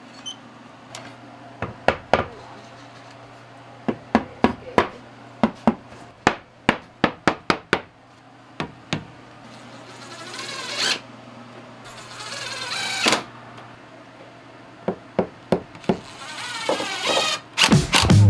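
Construction work on wood: a run of sharp knocks and taps like hammering, with two short whirring bursts of a power tool between them, over a steady low hum.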